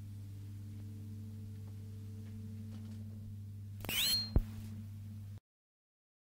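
Steady low electrical hum, with a brief squeaky chirp about four seconds in and a sharp click right after it; the sound then cuts off to dead silence.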